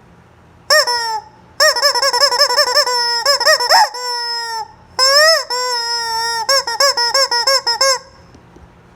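Chicken calling loudly in quick runs of high, rising-and-falling squawks, several a second, with a couple of longer drawn-out cries and short breaks between runs. A faint steady hum from a nearby electric fan runs underneath.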